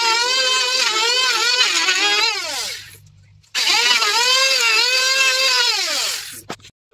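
Electric hand planer cutting along the edge of old wooden door timber: a loud motor whine that dips and wavers under the cut, winds down with falling pitch about two and a half seconds in, starts up again about a second later, and winds down once more near the end.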